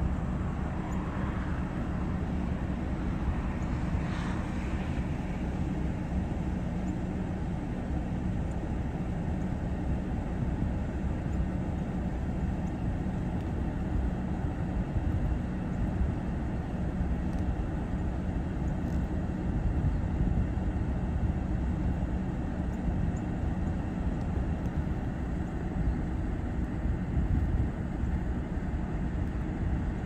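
Steady low rumble of background noise with a faint hum, unchanging throughout.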